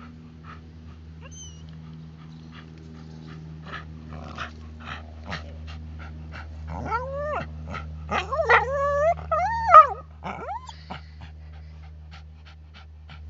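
A dog whining and yelping in drawn-out, bending calls, the first rising and then falling about seven seconds in and a run of louder ones to about ten and a half seconds. It is an agitated, unusually toned whine aimed at another dog that it takes as a rival.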